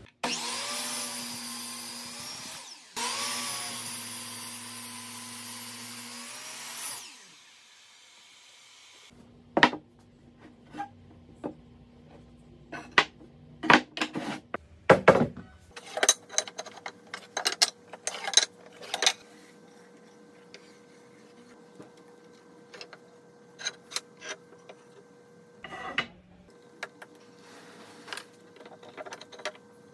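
An electric power tool working wood runs in two bursts of a few seconds each, spinning up and winding down, the second starting about three seconds in. After that come scattered sharp knocks and clicks of wooden boards being handled and set down on a wooden workbench.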